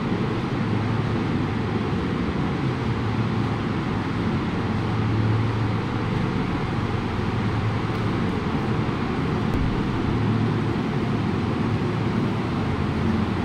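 Steady drone of factory machinery: a low hum under an even rushing noise, unchanging throughout.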